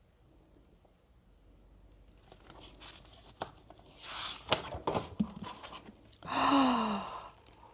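Rustling and a few sharp clicks and taps from handling a hardcover special-edition book and its packaging, then a short breathy 'ohh' from a woman, falling in pitch, near the end.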